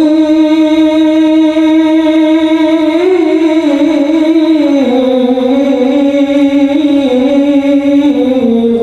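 A man chanting solo and unaccompanied into a microphone, holding one long note that wavers and dips slowly in pitch. It breaks off at the end.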